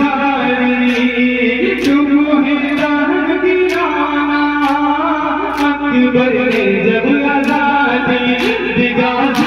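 A noha, a Muharram lament, sung in a slow wavering melody, with the crowd's matam, hands striking chests together, landing as sharp slaps about once a second.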